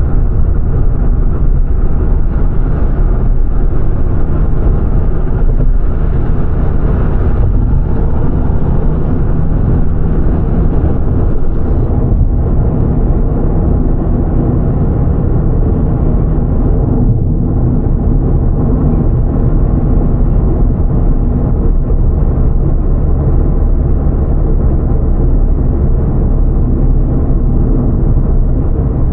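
Steady drone of a car driving at road speed, heard from inside the cabin: a low engine hum under the rush of tyres on the road surface.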